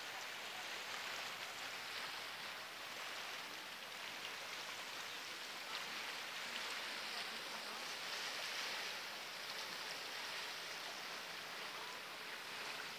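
Steady, even hiss of shoreline outdoor ambience, water-like, with no distinct events.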